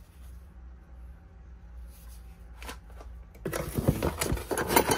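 Cardboard packaging being rummaged through by hand: scraping, rustling and clicking that starts about three and a half seconds in and grows louder, over a low steady hum.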